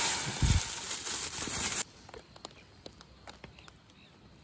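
Dry basmati rice pouring from a plastic bag into an aluminium pot of water: a loud, steady hissing patter with one dull thump about half a second in. It cuts off abruptly about two seconds in, leaving a quiet outdoor background with faint scattered clicks and a few short chirps near the end.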